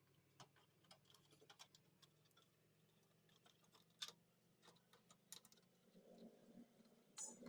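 Near silence with faint, irregular small clicks and taps over a low steady hum; the hum fades out about six seconds in.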